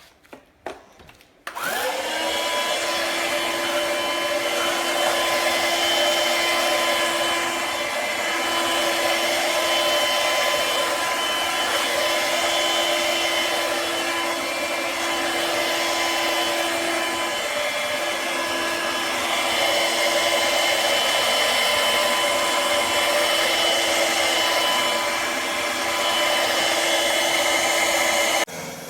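Shark cordless stick vacuum switched on after a few clicks, its motor spinning up to a steady whine over a hiss of rushing air. It runs until it is switched off just before the end.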